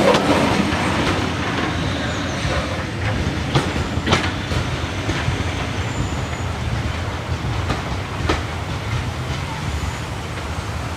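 Diesel-hauled heritage passenger train passing, its coaches rumbling with a few sharp clacks of wheels over rail joints, the sound slowly easing off as it goes by.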